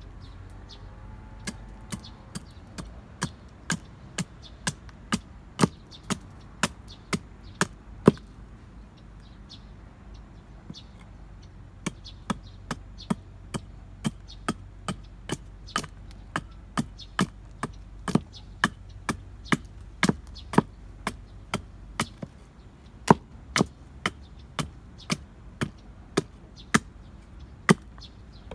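Hatchet chopping into a length of wood held upright on a chopping block, hewing it to shape. The sharp knocks come about two a second, with a pause of a few seconds about a third of the way through before they start again.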